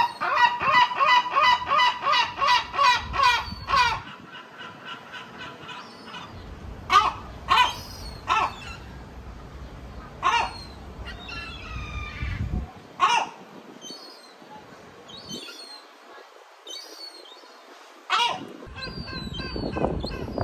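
Gull calling: a fast run of about five harsh calls a second for the first four seconds, then scattered single calls, some thinner and higher-pitched, through the rest.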